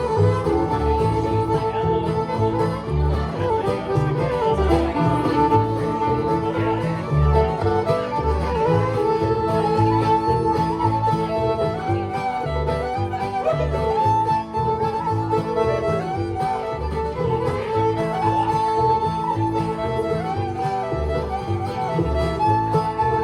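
Bluegrass instrumental music: fiddle playing the melody over guitar and banjo, with a steady beat.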